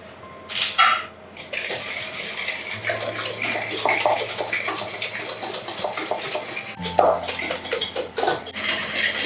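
Whisk beating egg yolks and sugar in a bowl, a quick steady clatter against the bowl, after a couple of knocks in the first second.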